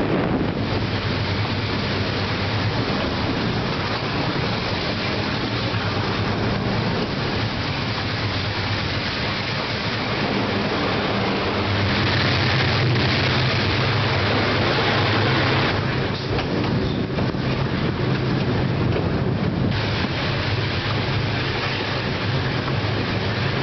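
Diesel train of the Ferrocarril Central del Perú heard from aboard: a steady low engine drone over the rolling noise of the wheels on the rails. It grows louder and brighter for a few seconds in the middle while the train runs through a rock tunnel.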